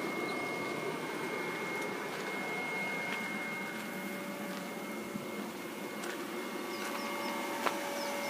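Aquaponics air blower running steadily, a continuous mechanical noise with a high steady whine; a second, lower tone joins about six seconds in. The blower is pumping air into the fish-tank water to aerate it and keep it from getting too warm.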